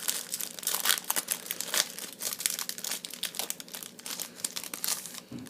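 Foil wrapper of a Yu-Gi-Oh! booster pack crinkling as it is handled and opened, a dense run of quick crackles that thins out near the end.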